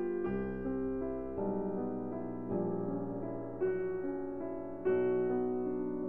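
Piano background music, with chords struck about once a second and each left to fade before the next.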